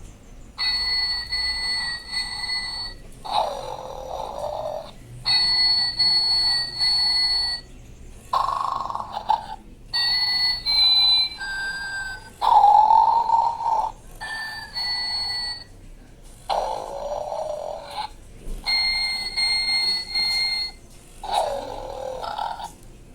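Electronic snoring sound effect from a Totoro plush toy: a snore about a second long with a bending pitch, followed each time by about two seconds of high whistling tones, the cycle repeating about every four seconds.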